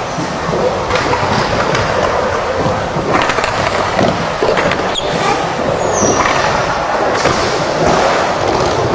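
Skateboard wheels rolling around a bowl, with the board grinding on the metal coping and several sharp clacks of the trucks and deck striking the rim.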